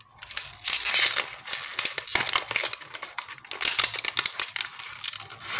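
Small cardboard product box being handled and opened by hand: irregular rustling and scraping of the card with small clicks and taps.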